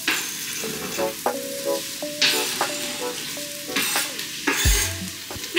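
Onions and garlic sizzling as they sauté in a pot, with a spoon stirring through them that makes the sizzle rush louder several times.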